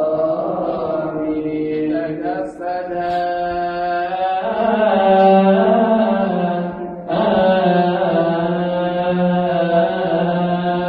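A man chanting a drawn-out melismatic phrase of the Coptic Orthodox liturgy, holding long notes without clear words, with short breaks for breath about two and a half seconds in and about seven seconds in.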